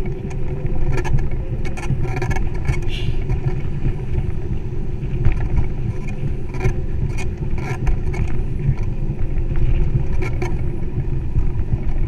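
Wind buffeting the microphone of a camera mounted on a moving bicycle, with rumble from the tyres on the paved path, steady throughout. Occasional light clicks and rattles from the bike run through it.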